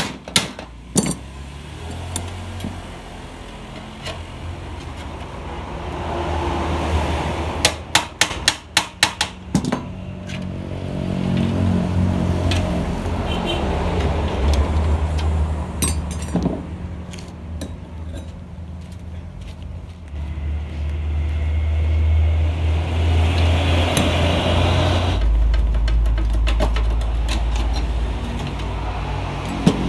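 An engine running, rising and falling in level in stretches and settling deeper and louder near the end, with a quick run of sharp knocks about eight to ten seconds in.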